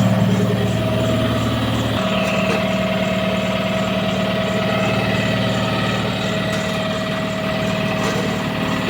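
Isuzu 4HK1 four-cylinder diesel of a Hitachi excavator running steadily, its tone shifting slightly about two seconds in. It is fed from a temporary fuel supply that bypasses a very dirty tank, which the mechanic blames for damaging the injectors.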